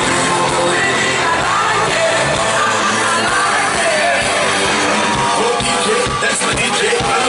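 Loud live pop music from a concert sound system, with singing, heard from inside the crowd.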